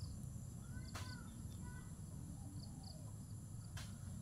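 Faint rural ambience: insects (crickets) trilling steadily at a high pitch, with a few short bird chirps about a second in and a low rumble underneath. Two sharp clicks stand out, one about a second in and one near the end.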